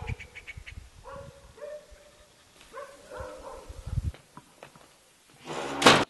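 Short animal calls that repeat every second or so, with a louder harsh noise near the end.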